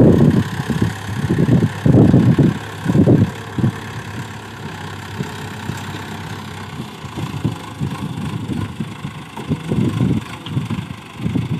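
HMT 7511 tractor's diesel engine running as it pushes soil with its front dozer blade. Wind buffets the microphone in gusts, heaviest in the first few seconds and again near the end.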